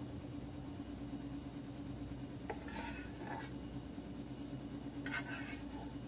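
A utensil scraping and clinking against a saucepan as hot sauce is spooned out of it, in two short bursts about three and five seconds in, over a steady low hum.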